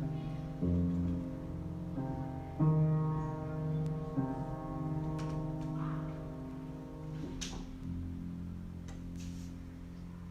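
Improvised instrumental music: a few held chords struck one after another and left to ring, fading out about seven seconds in to a softer low tone. A sharp click sounds just after the chords fade.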